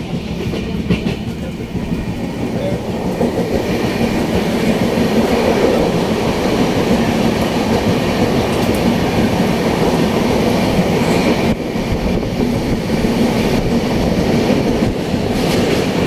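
Train running along the track: a steady rumble of wheels on rails that grows louder over the first few seconds and then holds.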